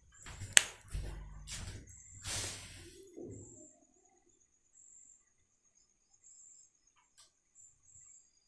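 A few faint knocks and rustles, one of them a sharp click just over half a second in, over the first three seconds or so. Then near silence with only a faint high hiss-like tone.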